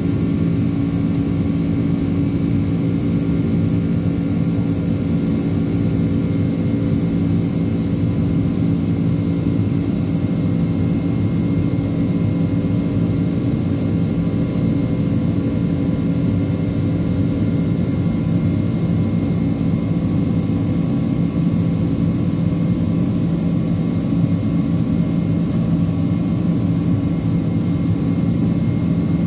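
Cabin noise inside a Boeing 767-432(ER) airliner in flight: a steady drone of jet engines and rushing air, with a few steady hum tones.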